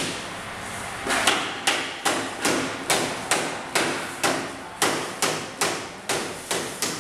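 Mallet striking a bamboo crossbar where it joins an upright post of a bamboo bar frame: a steady run of sharp knocks, about two to three a second, starting about a second in.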